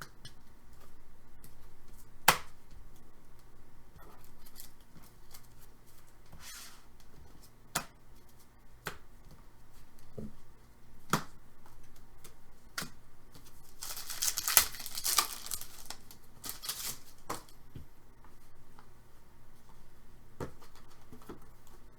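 Trading card packs and cards being handled: scattered sharp clicks and taps, with a burst of crinkly wrapper tearing from about 14 to 16 seconds in.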